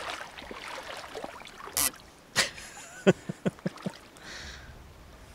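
Shallow river water trickling and splashing around a large red-tailed catfish held up at the water's edge, with a sharp knock about two and a half seconds in and a quick run of about five short clicks just after.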